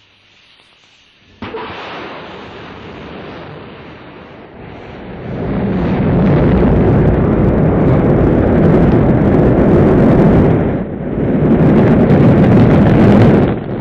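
Rocket launch: a sudden burst at ignition, then a deep, noisy rumble of rocket engines that swells to full loudness as the rocket lifts off and climbs, with a brief dip near the end.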